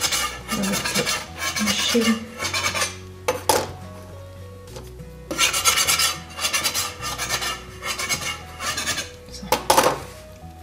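Slotted metal spatula scraping across a floured wooden board under soft yeast dough, in repeated rasping strokes, as the poppy-seed-filled dough is lifted and rolled up. The strokes come in two spells of a few seconds, with one sharper scrape near the end.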